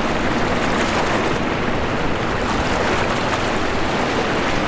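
Steady rushing noise of wind and river water, with low rough buffeting on the microphone.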